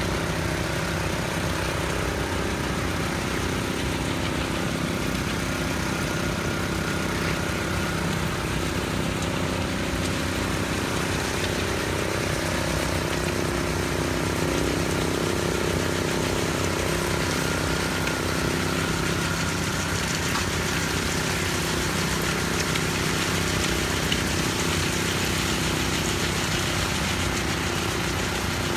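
An engine running steadily at one constant speed, with no change in pitch or loudness, over the background noise of a concrete job site.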